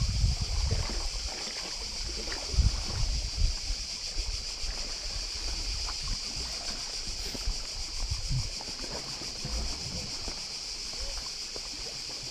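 Seashore ambience: a steady high-pitched drone over irregular low rumbling of wind and handling on the microphone, with water lapping against the rocks and a few small knocks.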